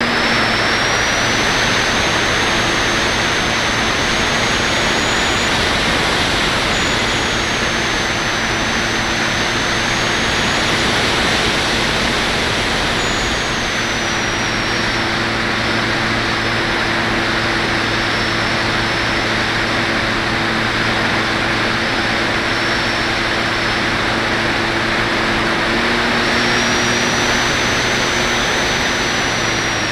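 Airflow rushing over the onboard camera of a radio-controlled FPV glider in flight, with a steady low hum and a thin high whine that shifts up and down in pitch several times.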